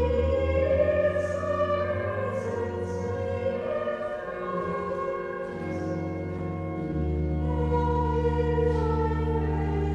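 Choir singing sacred music, with low held bass notes underneath.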